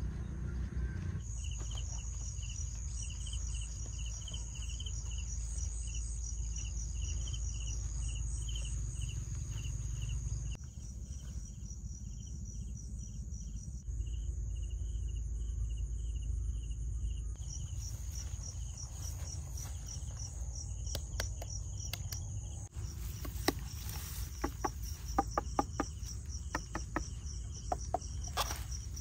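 Insects chirping: a continuous high buzz with a pulsing chirp about twice a second, over a steady low rumble. Near the end a string of sharp clicks.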